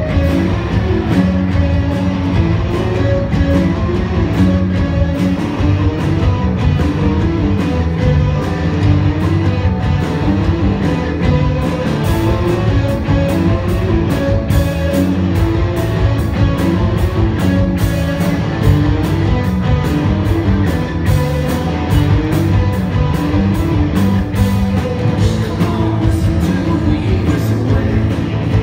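Live rock band playing loud electric guitars and drums, with some singing, heard through the PA from the audience. The band has kicked in hard just before and plays on with a steady driving beat.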